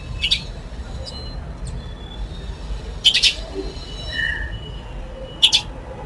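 House sparrows chirping: three short, sharp chirps, the middle one doubled, over a low steady rumble.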